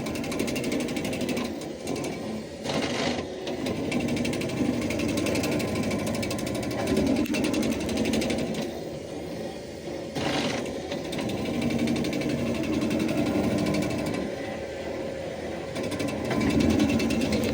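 Baumalight S28 stump grinder on a skid steer chewing into a stump: the toothed cutting wheel makes a fast, steady chatter over the skid steer's engine under load. There are louder grinding bursts about three and ten seconds in.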